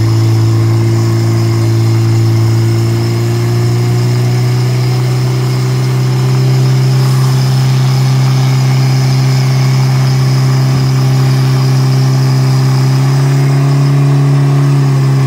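Portable fire pump engine running flat out at high revs, pumping water to the hose lines in a fire attack run. A loud, steady drone that rises slightly in pitch about three seconds in.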